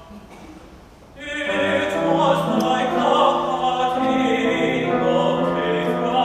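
A man singing a classical art song with grand piano accompaniment; after a quieter first second, the singing and piano come in fuller.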